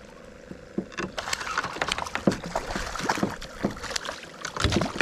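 A hooked redfish being landed: irregular splashing and knocking as it thrashes at the water's surface. The sound begins about a second in.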